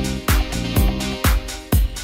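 Background music with a steady dance beat: a kick drum about twice a second under held synth-like notes.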